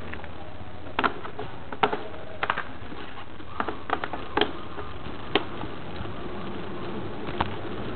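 A moving camera rattling in its casing or mount: irregular sharp clicks and knocks over a steady low rumble.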